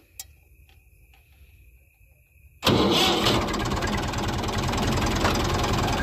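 Millat (Massey Ferguson-licensed) tractor's diesel engine being started: a few light clicks, then about two and a half seconds in the engine catches abruptly and settles into a steady, fast-pulsing idle.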